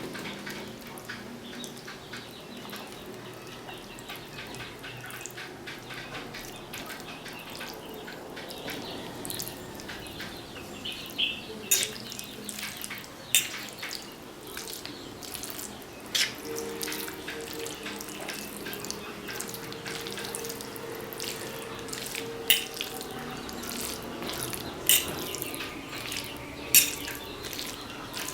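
Water running steadily, with a few sharp clicks and clinks scattered through it.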